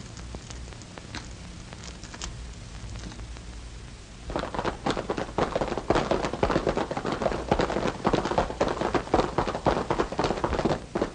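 Radio-drama sound effect of horses galloping off: a dense, rapid clatter of hoofbeats that starts suddenly about four seconds in, over a steady low hum from the old film soundtrack.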